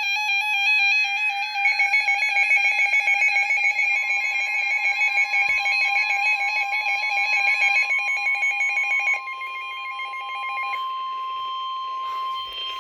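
Weather alert radios sounding their alarms for a severe thunderstorm warning: several warbling alert tones overlapping, with a fast pulsing beep under them. A steady single-pitch warning tone joins about four seconds in and holds while the warbling alarms drop out one by one near the end.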